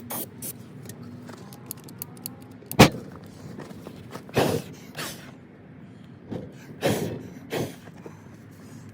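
Starting fluid ignited inside a riding lawn mower tire goes off with one sharp bang about three seconds in, an attempt to blow the tire out and reseat its bead. Several shorter, softer rushing sounds follow over the next few seconds.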